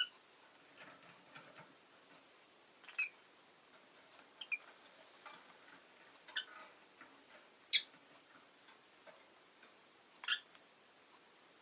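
Rosy-faced lovebird giving short, sharp chirps, about six spaced a second or two apart, the loudest about two-thirds of the way through, with faint small clicks in between.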